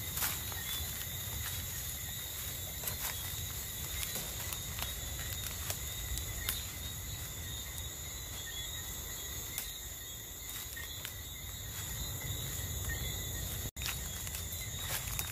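Night insect chorus, crickets and other insects trilling steadily at several high pitches, over a low rumble with scattered light clicks. The sound cuts out for an instant near the end.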